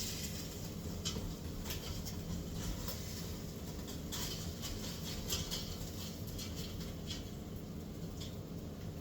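Kitchen work: irregular light scrapes and clicks of utensils over a steady low hum from a running appliance.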